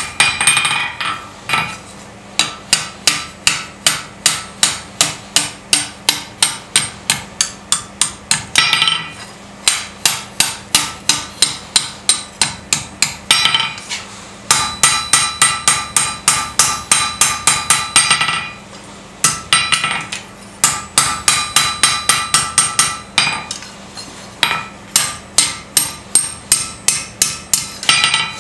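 Hand hammer striking hot steel on an anvil in quick runs of blows, about three a second, with short pauses between runs. Each blow rings metallically.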